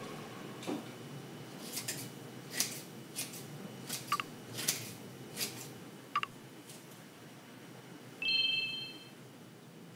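Scattered light clicks and clinks of kitchen utensils against a cooking pot and jars while a pot of red sauce is stirred and seasoned, with one short ringing clink a little after eight seconds in.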